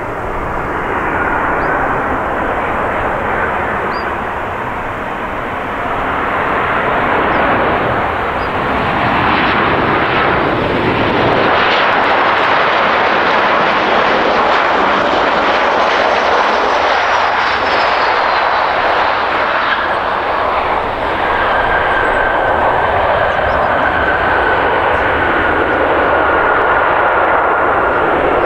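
Boeing 737-800 airliner landing, its two CFM56 turbofan engines making loud, continuous jet noise. About two-thirds of the way through a high engine whine comes in and slowly sinks in pitch.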